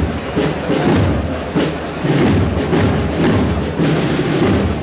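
A processional wind band playing a procession march, with deep brass and drums keeping a steady beat.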